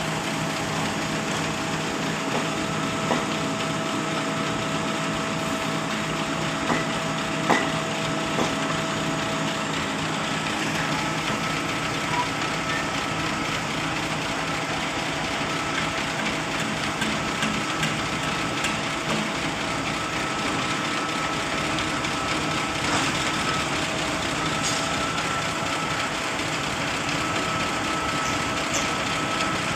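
XCMG truck-mounted concrete pump's diesel engine running steadily, with a thin steady whine over it and a few light knocks.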